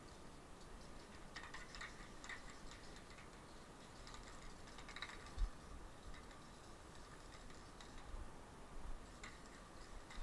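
Aerosol spray-paint can spraying red fill onto a wall in short, faint bursts with light clicks between them.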